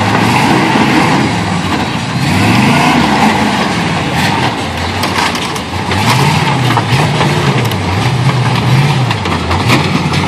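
Off-road truck engine revving up and falling back several times, with scattered sharp clicks and knocks in the middle.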